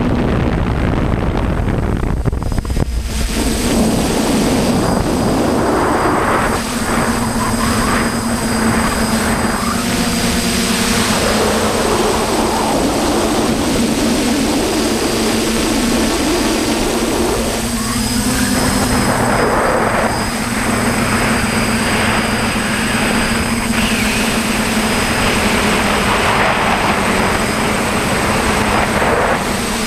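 DJI F550 hexacopter's electric motors and propellers humming steadily, the pitch shifting a few times as the throttle changes, with a thin high whine above. Gusts of wind buffet the microphone in several swells.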